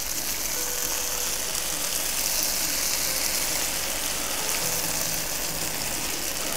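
Gnocchi with onion and bacon sizzling steadily in a hot frying pan as beef jus is spooned over them.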